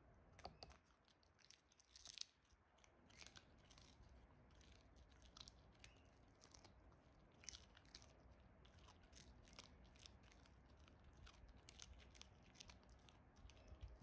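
A small dog chewing a fish treat: faint, irregular crunches and clicks of teeth on the treat.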